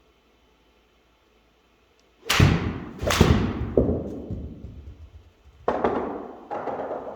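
Sharp impacts from golf practice swings, each with a ringing decay. They come in two close pairs, fitting a practice basket dropped from between the legs at the transition and then the club striking the ball.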